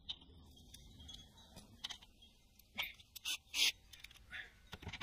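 Scattered light clicks, taps and scrapes of hand tools being worked against cables and metal under a trailer, with a couple of louder sharp knocks about three and a half seconds in.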